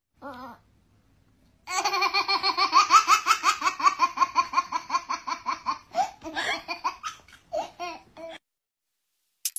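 High-pitched laughter: a long run of quick rhythmic ha-ha pulses, about five a second, that thins out into a few last giggles.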